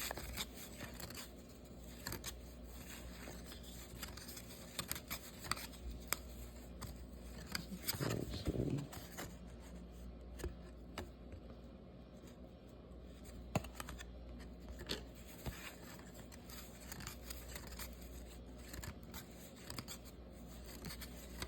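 Trading cards being handled and flipped through: scattered light clicks, slides and rustles of card stock.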